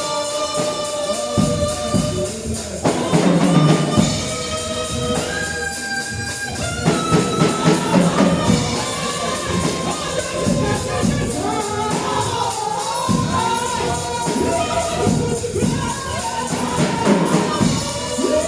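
Live gospel praise music: voices singing over held instrumental notes, with a tambourine shaken in a steady rhythm.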